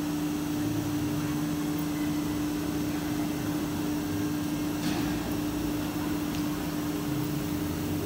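Steady hum of a Holztek nesting CNC router's machinery running, with one strong steady tone over a constant noise, and a faint tick about five seconds in.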